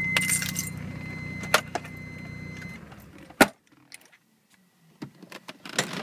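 Mazda RX-7's rotary engine running, heard inside the cabin, with a steady high whine over it. Both cut off about three seconds in, a single sharp bang follows half a second later, and after a quiet moment there is a scatter of small jingling, rattling clicks near the end.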